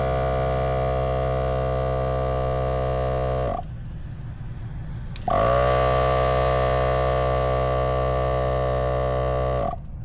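Small electric air compressor (tire inflator) running steadily with a strong hum as it pumps up a Onewheel tire past 30 PSI toward 50 PSI to seat the bead. It stops about three and a half seconds in, starts again a second and a half later, and cuts off again near the end, its pitch sagging each time it winds down.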